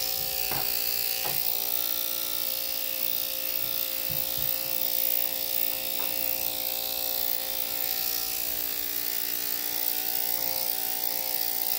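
Corded electric dog grooming clippers running with a steady buzzing hum while clipping a puppy's coat.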